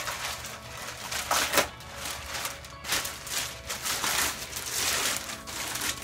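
Thin clear plastic bag rustling and crinkling in irregular surges as it is handled and worked off a loudspeaker cabinet.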